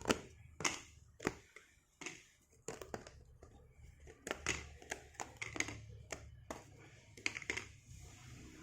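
Stiff cardstock game cards and cardboard pieces being handled and set down on a table: a run of irregular sharp clicks and taps.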